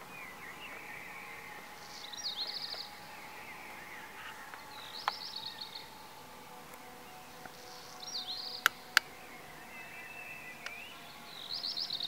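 A songbird singing a short phrase of quick high notes, repeated about every three seconds over a faint steady background hum. Two sharp clicks close together, about three-quarters of the way through, are the loudest sounds.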